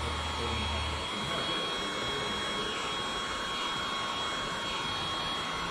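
Electric heat gun blowing steadily with a thin, even whine, used to heat-shrink window tint film to the curve of a windshield. A low hum underneath drops out about a second in.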